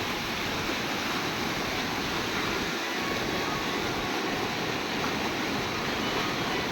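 Steady rush of floodwater pouring across a road after heavy rain.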